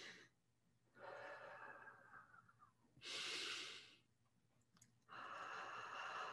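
A woman's slow, quiet, audible breathing: three long breaths in the course of a few seconds, the middle one shorter and breathier, during a guided breathing meditation.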